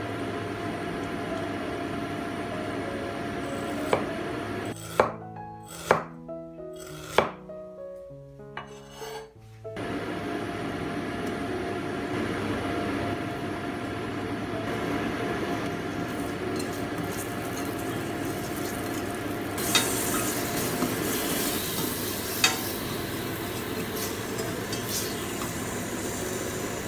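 Ginger slices sizzling in hot olive oil in a stainless steel saucepan, with four sharp clinks of a utensil against the pan a few seconds in. The sizzle turns brighter and hissier about two-thirds of the way through.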